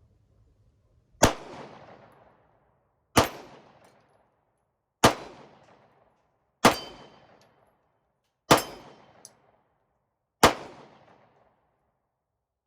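Six 9mm pistol shots from a Smith & Wesson M&P Shield 2.0, slow aimed fire about one every two seconds, each shot trailing off over about a second. After several shots a brief high ring follows, typical of rounds striking a small steel target.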